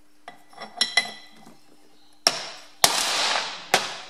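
A steel ring clinks as it is set on the axle bearing housing, then three hard hammer blows strike it, each ringing on, driving against a Ferguson TE20 rear axle bearing already fully seated in its housing. The hard, sharp ring of the blows is the sign that the bearing is home.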